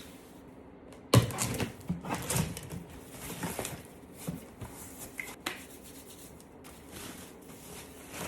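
Cardboard box and packaging being handled. A sharp knock comes about a second in, then a run of clattering knocks and rustles, thinning to occasional clicks.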